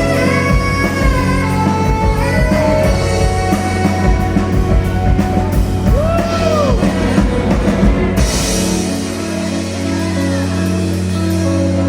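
Live rock band jamming on guitar and drum kit. The drums stop about two-thirds of the way through, leaving held guitar notes ringing.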